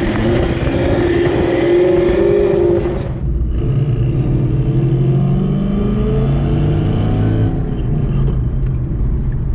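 Ford Mustang Boss 302's V8 and exhaust (long-tube headers, X-pipe, Borla mufflers) heard from inside the cabin while driving. The engine pulls steadily, breaks off briefly about three seconds in, then comes back at a lower pitch, climbs slowly and eases off near the end.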